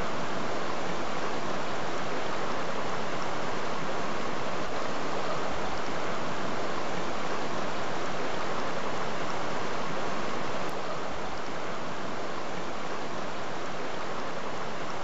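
Shallow mountain stream rushing and splashing over boulders, a steady, full water noise that drops slightly in level about eleven seconds in.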